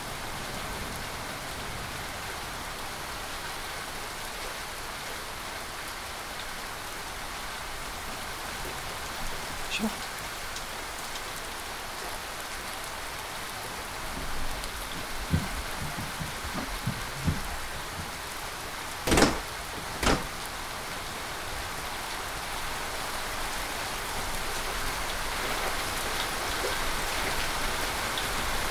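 Steady rain falling, getting a little louder toward the end. A few soft knocks come about two-thirds of the way through, followed by two loud thumps about a second apart.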